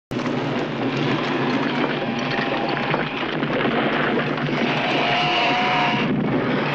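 Film sound of a large fire burning, a dense steady crackling noise, after a split-second dropout at the very start. A held high tone sounds for about a second near five seconds in.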